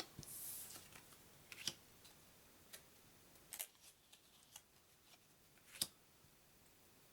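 Faint clicks and taps of glossy trading cards being handled and set down, about eight scattered ticks with a brief soft slide near the start; otherwise near silence.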